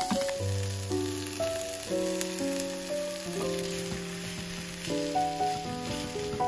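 Beaten egg with strips of carrot and green pepper sizzling in a rectangular tamagoyaki pan as it is stirred with chopsticks. Soft background music with held chords plays over it.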